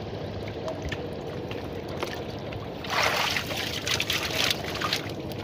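Shallow water splashed by a hand working beside a pot of caught fish: a burst of sloshing about three seconds in, then smaller splashes and knocks.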